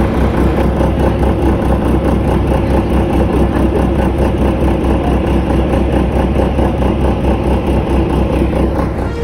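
A vehicle engine running steadily with a fast, even low throb, loud and close.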